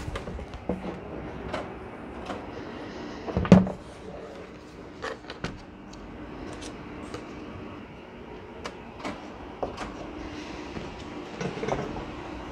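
Scattered clicks and knocks of a laptop being handled and moved on a wooden workbench, with one heavier thump about three and a half seconds in, over a faint steady hum.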